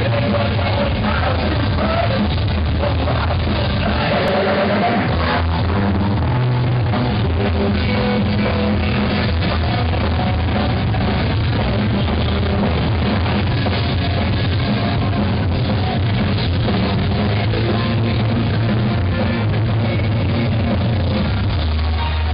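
Live rock band playing loud in a club, with drums, guitars and a singer, recorded from the crowd through a small camera microphone with the highs cut off.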